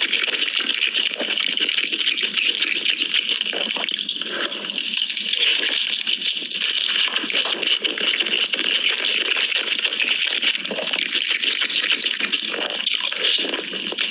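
Close-up crunching and chewing of crispy Korean fried chicken, a dense crackle of many small crunches.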